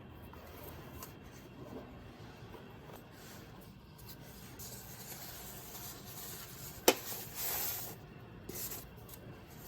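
Soft rubbing and rustling of hands handling things, with one sharp click about seven seconds in, then a short scraping rustle.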